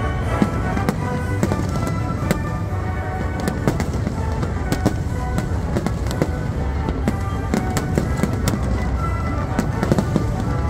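Aerial fireworks bursting in rapid, irregular bangs, several a second, over symphony orchestra music playing throughout.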